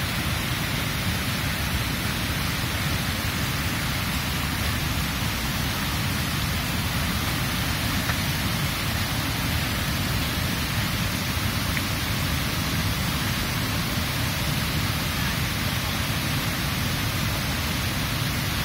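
Steady rush of river rapids: whitewater tumbling over rocks.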